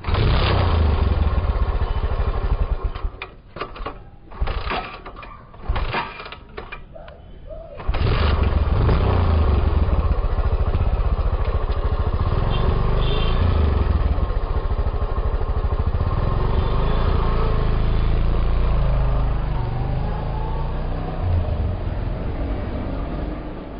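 Motorcycle engine running. About three seconds in it breaks up into short spurts with gaps between them, then from about eight seconds it runs steadily again, easing off slightly near the end.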